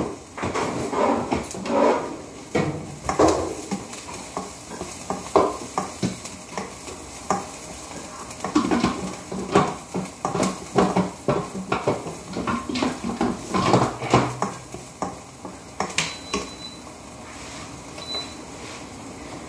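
A spatula scraping and knocking in a non-stick wok as chopped onion and tomato are stirred and sautéed, over a steady sizzle. The knocks are irregular, busiest in the middle and thinning out near the end.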